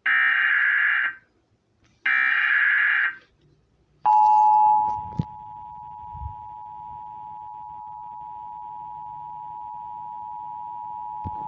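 Emergency Alert System broadcast: the last two bursts of the SAME digital header, each a harsh, warbling data screech about a second long, then the EAS attention signal, a steady two-tone alarm (853 and 960 Hz) lasting about eight seconds, loud at first and then dropping lower. This is the alert that heralds a spoken severe thunderstorm warning.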